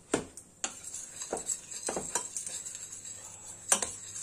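A metal spoon clinks lightly against a stainless steel pot as flour is added to melted butter to start a roux. There are about six short clinks, the loudest about three-quarters of the way through, over a faint steady hiss.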